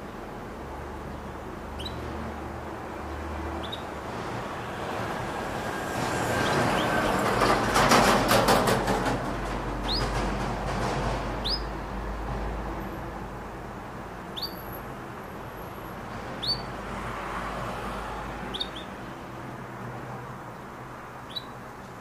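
Canary giving short single chirps that sweep upward in pitch, about eight of them spaced a second or more apart. Over a steady background hum, with a louder swell of noise and a fast rattle in the middle.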